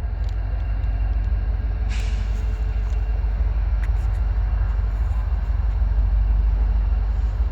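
Diesel locomotives of a freight train, led by an EMD SD40-2, running with a steady low rumble, with a short hiss about two seconds in.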